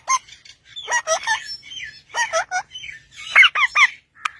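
Parrot vocalizing: bursts of chattering, voice-like calls with whistled pitch glides and sharp clicks. The loudest is a run of three falling notes near the end.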